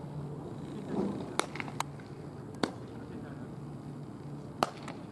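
Baseballs smacking into leather gloves during a game of catch: sharp pops at irregular intervals, about five in a few seconds, from several pairs throwing at once.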